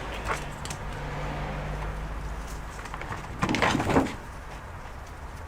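A short rattling clatter of parts being handled on a repair bench about three and a half seconds in, over a steady low hum.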